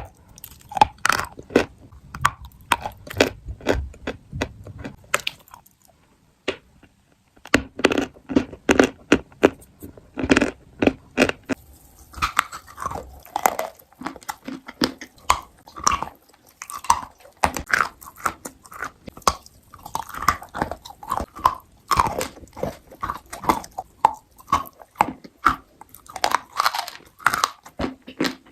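Close-up crunchy chewing and biting of food, rapid crisp crunches with a short pause about six seconds in, then continuing with wetter chewing mixed in.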